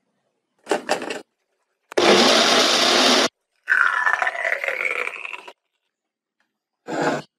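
Short milkshake-making sounds cut together with silence between them. The loudest is a blender running steadily for just over a second. It is followed by a rougher, wavering sound for about two seconds and a brief final sound.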